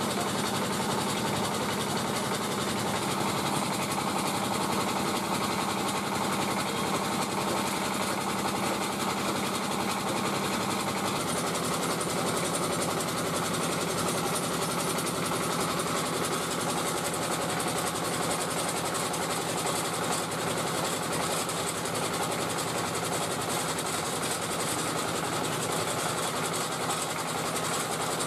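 Engine running steadily, belt-driving a rice-puff extruder machine as the puffed rice tube is pushed out of its nozzle.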